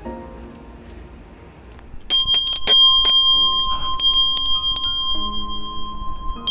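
Small stainless-steel Korean wind bell (pungyeong) rung close to the microphone. About two seconds in, its clapper strikes in a quick run of clear rings, then a few more strikes follow. Each strike leaves a steady ringing tone with a brighter higher one above it.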